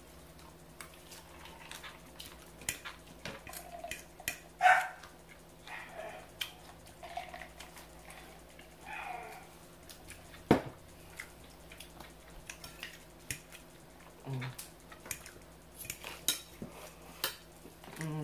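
Eating at a table: a fork clinking and scraping on a plate between bites of rotisserie chicken and salad, with one sharp clink about ten and a half seconds in.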